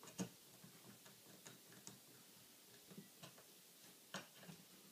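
Near silence with a few faint, scattered small clicks and taps: a punch and the rifle's trigger guard being worked while its spring-loaded front detent is pressed down.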